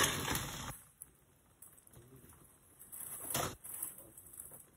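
Chuck roast in broth sizzling in a hot pot: a loud hiss that stops short under a second in, then faint sounds and a brief knock about three and a half seconds in.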